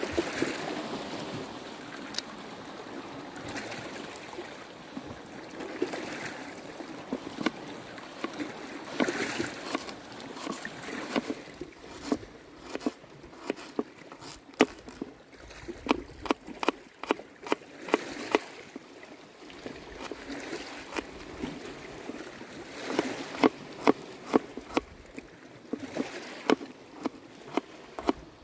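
Knife chopping garlic cloves on the bottom of an upturned wooden bowl: sharp taps, coming in quick runs from about halfway through, over a steady wash of water.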